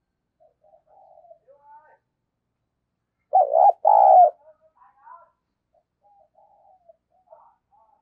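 Spotted dove cooing. Two loud, low coo notes sound together about halfway through, with fainter, broken cooing notes before and after.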